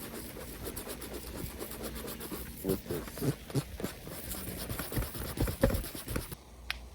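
The small metal scuffer from a tube patch kit scraping a rubber bicycle inner tube in quick repeated strokes, roughening the spot around the puncture before the glue goes on, with a few louder knocks in the middle; the scraping stops shortly before the end.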